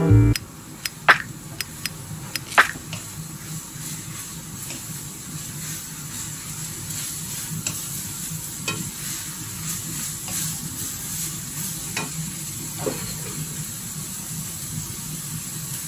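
Diced eggplant and minced beef sizzling in a wok while being stirred with a wooden spoon, which knocks sharply against the pan a few times.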